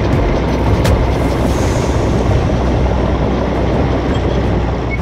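International TD6 crawler dozer running as it moves along on its steel tracks, a loud, steady engine noise heard from close behind the machine.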